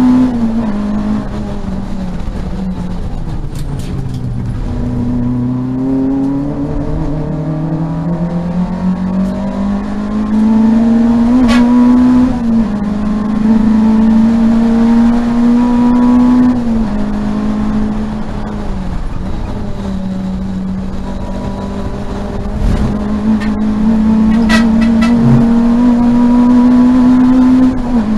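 Peugeot 205 GTi race car's four-cylinder engine heard from inside the cabin under racing load. The revs fall away about four seconds in and climb slowly back, then rise and drop sharply several times as gears change. A few brief sharp clicks come through over the engine.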